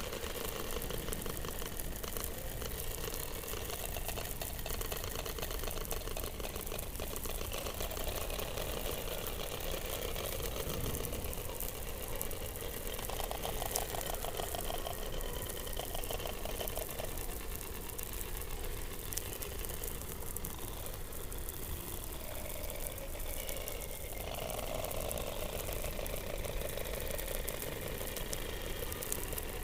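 Underwater sound recorded beneath the Antarctic ice: fast trains of rapid pulses, with drawn-out tones and a constant hiss of background noise.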